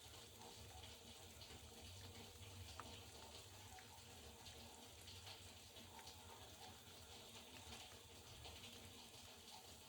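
Faint sound of a top-loading washing machine at work: water swishing and running in the drum over a low steady hum.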